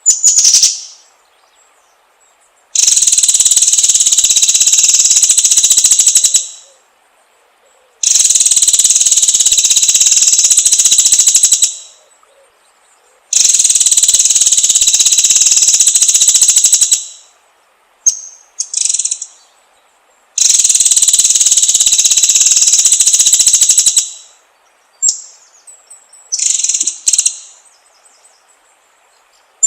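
White-rumped shama (murai batu) singing: four long, rapid, high trills of about four seconds each, with short high chirped notes between them and near the end.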